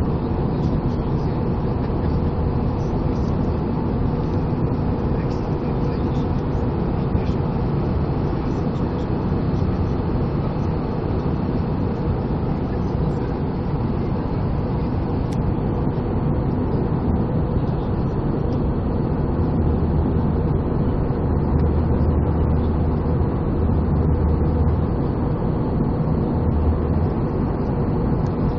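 Steady cabin noise of a jet airliner in flight during descent: the hum of the underwing jet engine mixed with airflow over the fuselage, heard from a window seat, with a slightly stronger low hum late on.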